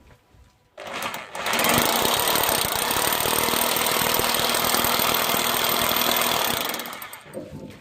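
Electric hammer drill boring into a wall, a steady rapid hammering that starts about a second in and dies away about a second before the end.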